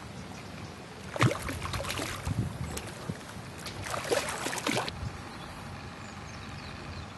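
A hooked fish splashing at the water's surface close in, in two bursts of about a second each: one starting about a second in, the other about four seconds in.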